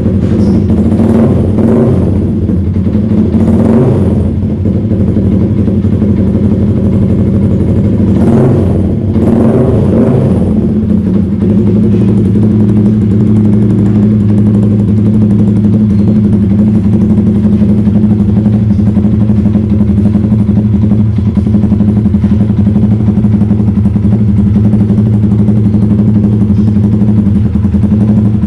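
Yamaha Sniper 150's single-cylinder engine through an aftermarket SC Project-style exhaust, revved in several quick blips during the first ten seconds, then idling steadily.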